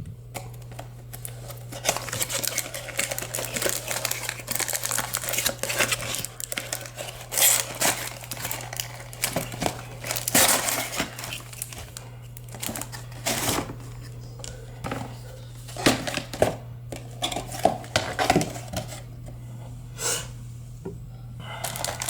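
Hands unpacking a cardboard shipping box: plastic and paper packaging crinkling and rustling, with tearing and light knocks of contents being moved, in irregular bursts. A steady low hum runs underneath.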